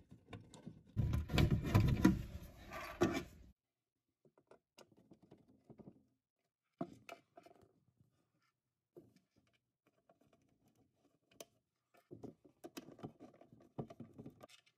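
Handling noise inside a particleboard cabinet: a loud rubbing and knocking for the first few seconds, then scattered small clicks and scrapes as a screw is set in its hole and turned in with a hand screwdriver, busier again near the end.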